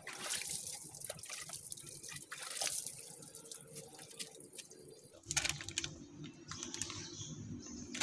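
Water splashed by hand over a drum-brake backing plate, running and dripping off it into a basin below, rinsing away leaked brake fluid. About five seconds in the sound changes to a steadier low hum with scattered light ticks.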